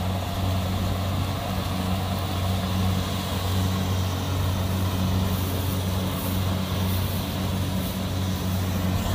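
Kubota DC-70 combine harvester running steadily while cutting and threshing rice, a constant low engine hum.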